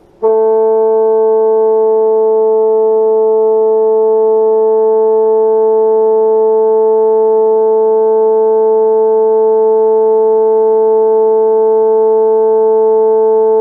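Bassoon playing one long, steady A at 440 Hz, starting a moment in. The note is held for tuning.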